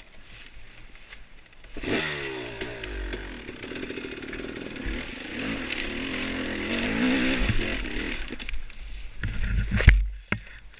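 Off-road dirt bike engine opening up about two seconds in and running under throttle, its pitch rising and falling as it rides, with a few sharp knocks shortly before it drops away near the end.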